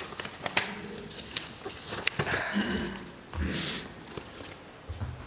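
Papers and a folder being gathered up on a lectern close to its microphone: rustling with scattered light clicks and knocks.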